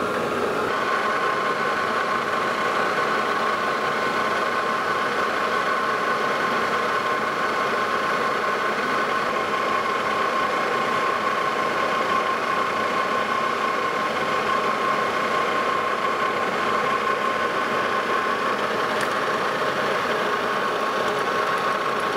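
Lodge & Shipley engine lathe starting up and running steadily, with a steady whine over its running noise, as it takes a final light finishing pass on a flange.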